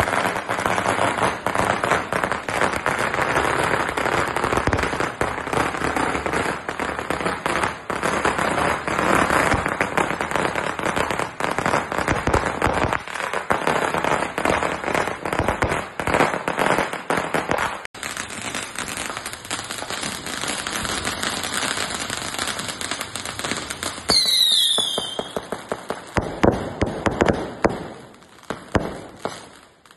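Chinese New Year fireworks and firecrackers going off in a dense, continuous crackle of rapid bangs, a little quieter after about 18 s. About 24 s in comes a short falling whistle, then separate sharp bangs with gaps between them near the end.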